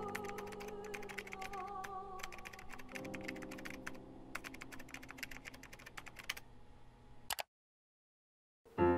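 Fast typing on a computer keyboard, with soft held music underneath. The typing stops about six seconds in. After a single click the sound cuts out completely for about a second, and then music starts at the very end.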